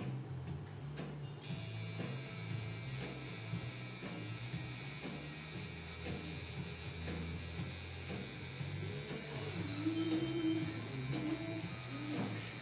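Electric tattoo machine buzzing steadily as its needle works into skin, switching on suddenly about a second and a half in, with quiet background music underneath.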